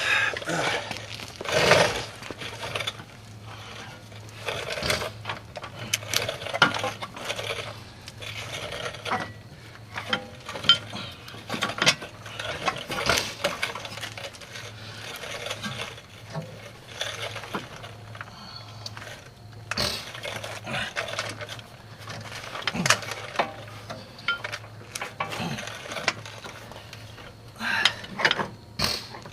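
Irregular metallic clinks, knocks and scrapes of tools and car parts being handled while a CV axle half shaft is fitted, over a faint steady low hum.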